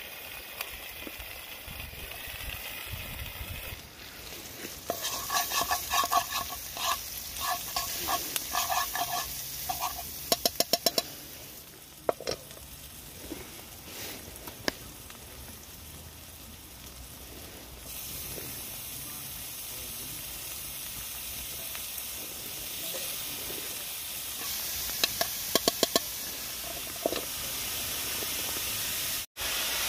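Vegetables and mince frying and sizzling in a large black pan over an open wood fire, stirred with a utensil that scrapes and clinks against the pan. The scraping comes in a run of short strokes between about 5 and 11 seconds in and again near the end. The sizzle gets louder about two-thirds of the way through.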